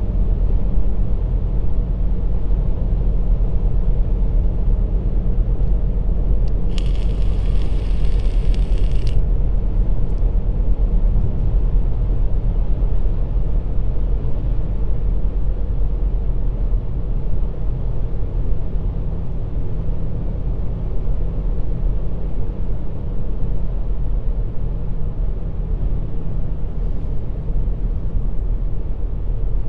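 Steady low rumble of road and engine noise inside a moving car's cabin, with a short hiss lasting about two seconds, roughly seven seconds in.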